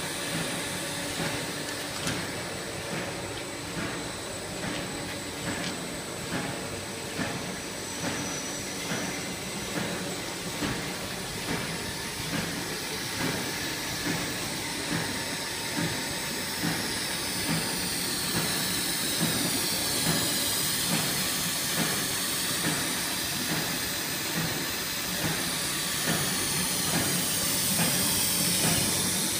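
Ball-pen barrel plastic extrusion line running: steady machine noise and hiss with a regular knock a little more than once a second. In the second half, high whines glide up and down in pitch over it.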